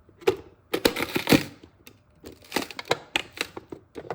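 Plastic push-down vegetable chopper being pressed repeatedly, with irregular clacks and knocks as the lid is pushed down onto the small blade grid.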